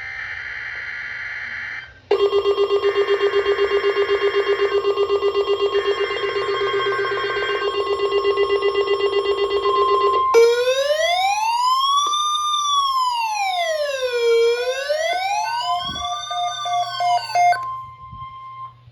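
Emergency alert tones: three short screeching data bursts about a second apart, first alone and then under a loud buzzing alarm tone. Then a siren wails up and down twice over a steady high alert tone, and both cut off near the end.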